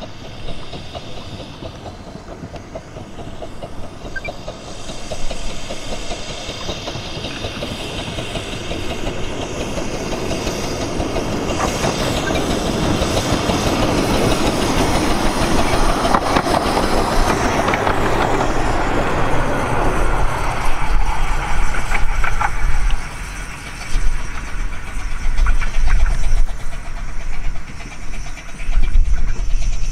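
A 15-inch gauge miniature steam locomotive approaching with its train, growing steadily louder to a peak around the middle. It then passes close by, with a low rumble that surges and dips through the second half.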